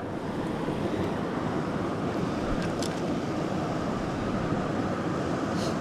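Small mountain creek's water running steadily over rocks, with a couple of faint ticks.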